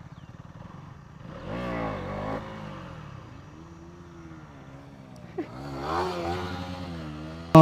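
Motorcycle engine running while riding, its revs rising and falling several times as it accelerates and eases off.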